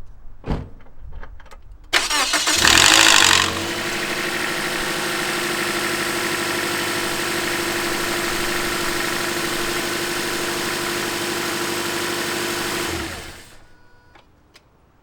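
A 2010 Toyota Corolla's engine starting cold about two seconds in, with a loud rattle for about a second and a half as it catches: the VVT-i cam sprocket rattling before oil pressure builds, a sign that the sprocket needs replacing. It then idles steadily and is switched off near the end, after a few clicks before the start.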